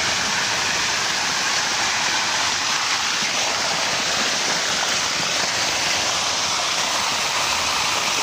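Heavy rain downpour: a steady, loud rush of hard rain, with runoff water pouring and splashing onto concrete.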